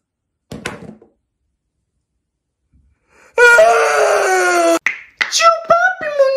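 A man's loud, drawn-out wailing cry, held for about a second and a half with slowly falling pitch, after a few seconds of near silence. Short, choppy voice sounds follow near the end.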